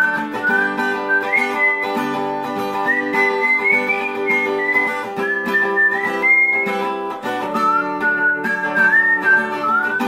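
Background music: a whistled melody over acoustic guitar.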